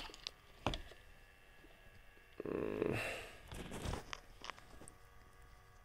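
Handling noise: a few light clicks and knocks, with a rustling scrape lasting about a second, starting about two and a half seconds in.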